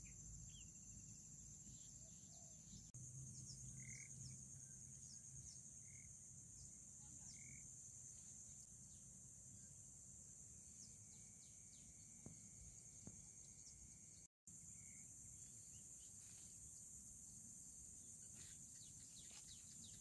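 Faint outdoor field ambience: a steady high-pitched insect drone, with a few short bird chirps and a low rumble underneath. The sound cuts out for a split second a little after the middle.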